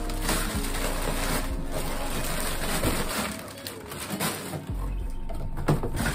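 Crinkling plastic snack bags and rustling cardboard as snacks are pulled out of a box, over background music with steady held notes. The crinkling is busiest in the first half and eases off later, with a sharp knock near the end.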